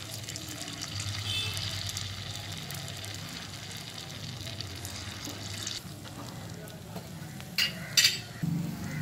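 Batter-coated suzhiyam balls deep-frying in well-heated oil in a small kadai, a steady sizzling hiss that weakens after about six seconds. Two sharp clicks sound near the end.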